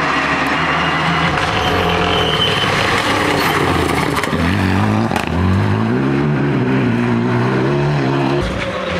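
Renault Mégane rally car's engine at full throttle as it passes close by. The revs dip briefly about four seconds in, then climb again after a gear change and hold high as the car pulls away.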